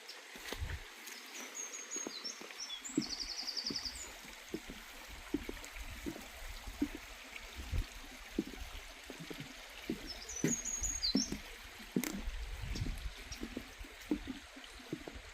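A small bird sings short high chirping phrases twice, the first with a quick trill, over a steady hiss and irregular low thumps.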